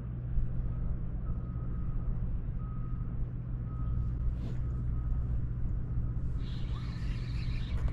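A vehicle's reversing alarm beeping repeatedly over a steady low engine drone, with a brief higher, buzzier sound near the end.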